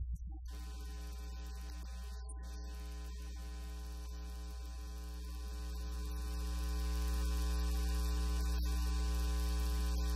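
Steady electrical mains hum with a buzz of its overtones, growing louder about six seconds in.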